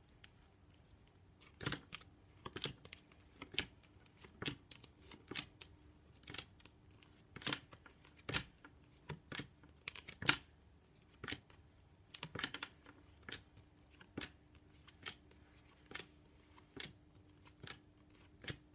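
Phonics flashcards being flipped over one after another in quick succession, a sharp flick or snap about every half second to a second, with a faint steady hum underneath.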